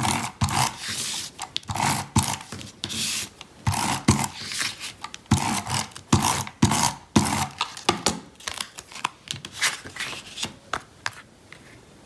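Adhesive tape runner dragged across the back of a cardstock panel in a series of short scraping strokes, about one a second, stopping shortly before the end.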